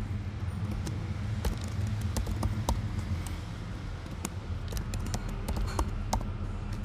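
Typing on a computer keyboard: irregular, scattered key clicks, over a steady low hum.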